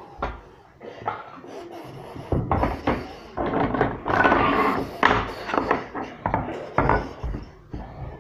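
Large plastic toy building blocks clacking and knocking together as they are picked up, stacked and pressed into place, with a busier clatter of rummaging blocks about four seconds in.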